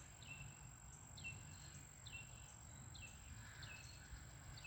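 A faint bird call repeated about once a second, each a short note sliding down in pitch and ending on a brief steady tone, over a steady high-pitched whine.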